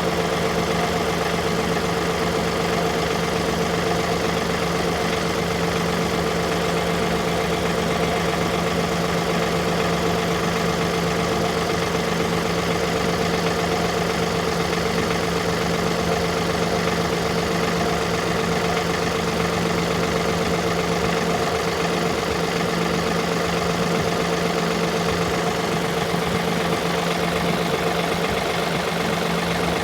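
Tractor engine running steadily at a constant speed, with an unchanging hum and no revving.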